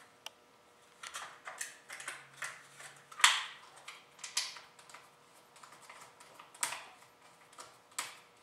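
A new air filter and its plastic cover being fitted by hand into the air filter housing of a Shindaiwa string trimmer: a series of irregular plastic clicks and knocks, the loudest about three seconds in.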